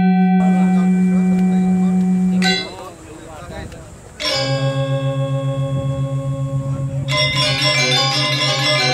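Music of ringing bells and gongs: a long-held low tone fades about two and a half seconds in, and after a short quieter gap a pulsing low gong tone comes in under ringing higher notes, growing fuller near the end.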